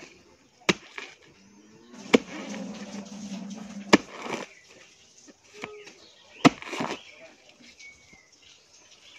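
A long-handled blade chopping four times into the soft top of a felled palm trunk to cut out the palm heart, with the strokes spaced a second and a half to two and a half seconds apart. Fibres rustle after the strokes. A low, drawn-out vocal sound is heard between the second and third strokes.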